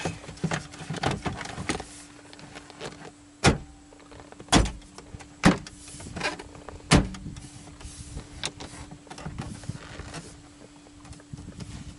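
Plastic radio bezel of a Dodge Ram dash being pushed and snapped into place: a run of small clicks and knocks from the trim clips, with four sharper snaps in the middle.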